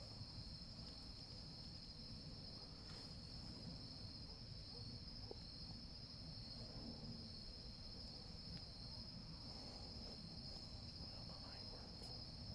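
Steady chorus of night insects, one continuous high-pitched buzz without a break, over a low rumble of background noise.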